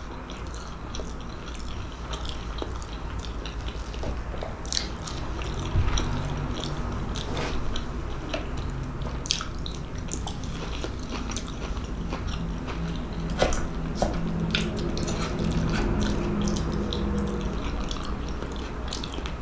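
A person chewing soft food (meatloaf, mashed potato and steamed vegetables) close to the microphone, with scattered sharp mouth clicks over a low steady hum.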